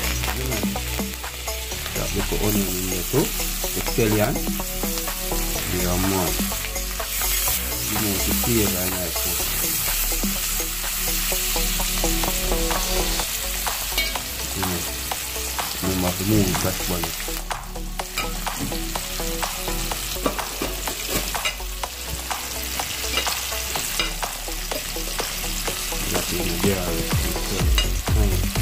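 Food sizzling in a frying pan while it is stirred, the utensil scraping and clicking against the pan over a steady hiss of frying.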